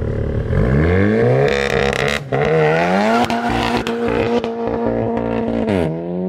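Seat León Cupra Black Carbon's turbocharged four-cylinder pulling away under acceleration. The revs climb steeply and break briefly with a gear change about two seconds in, then climb again, hold steady and drop near the end. The exhaust has been modified to be louder.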